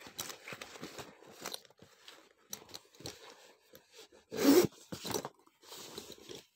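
Stiff waxed canvas of a Filson Tin Cloth travel kit rustling and crinkling as it is handled, with a louder scraping burst about four and a half seconds in as the metal zipper is worked.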